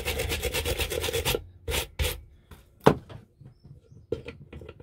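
A stiff hand brush scrubbing the rusty dial face of a vintage Salter milk scale in fast back-and-forth strokes, stopping about a second and a half in. Then a few clicks and knocks as the brush is put down and pliers are set on the pointer's nut, the loudest a sharp click near three seconds in, and a few light ticks near the end.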